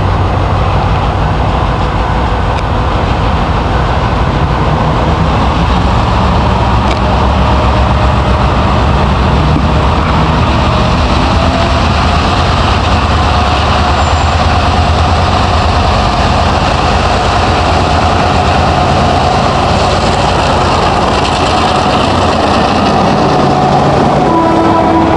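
GM (EMD) G22 diesel-electric locomotive's two-stroke diesel engine running under load as it pulls a passenger train away. It gets a little louder as the locomotive comes near and passes.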